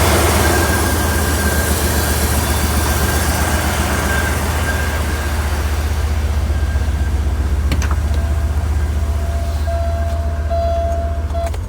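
Porsche 928's V8 idling with a misfire that the owner has not been able to trace, though it sounds alright, sort of; the engine visibly shakes the hood. The running sound stops abruptly with a sharp click near the end.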